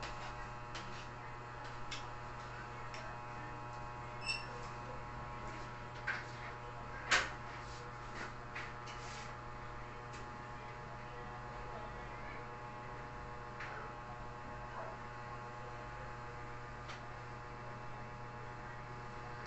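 Steady electrical hum throughout, with a few short clinks of a spoon and fork against a plate, the loudest about seven seconds in.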